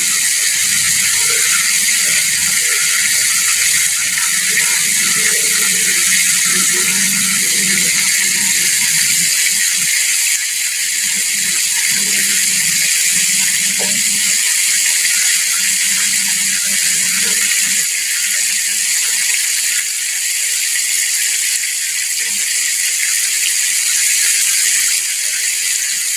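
Whole chicken deep-frying in a pot of hot oil, the oil sizzling steadily.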